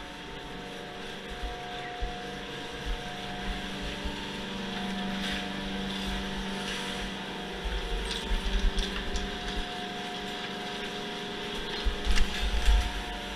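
Quad chairlift's terminal machinery running with a steady hum as the chair rolls through the terminal. Low thumps come about eight seconds in and again near the end.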